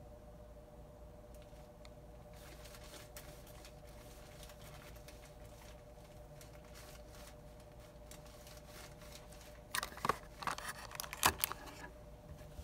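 Hands handling a molded chocolate dog candy in its clear plastic packaging: faint crinkles and taps, then a cluster of louder crinkling and clicks about ten seconds in. A faint steady hum sits underneath.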